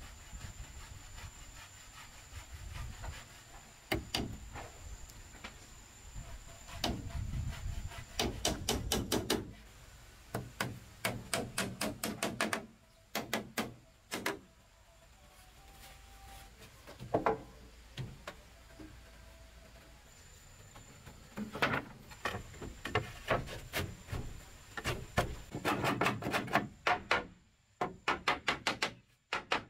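Hammer driving nails into wooden railing slats, in quick runs of blows separated by short pauses.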